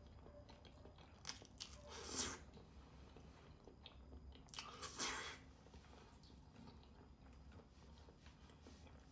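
Close-miked eating: quiet chewing and wet mouth sounds, with two short louder noisy sounds about two and five seconds in.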